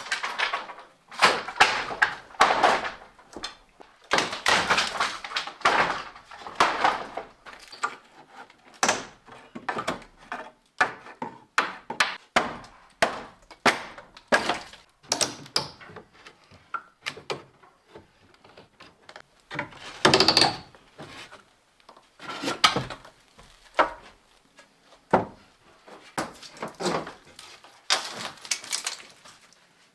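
Irregular wooden knocks, thuds and clatter from hand work on wooden boards or beams during a house renovation, with a few longer scraping or rattling stretches.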